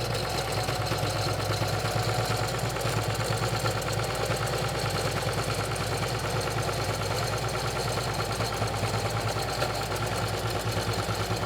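Electric sewing machine running steadily at speed with a fast, even stitching rhythm, starting up right at the beginning, as it stitches a zipper into heavy curtain material.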